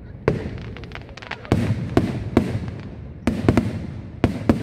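Aerial firework shells bursting in a quick, irregular series of about ten sharp bangs, some close together. Each bang is followed by an echoing rumble.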